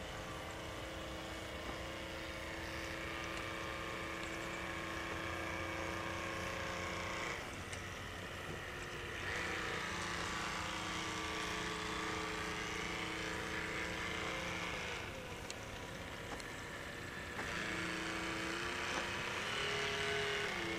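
Small RC model tug boat's motor whining steadily as it runs across the pond. Its pitch and strength shift a few times as the throttle is changed.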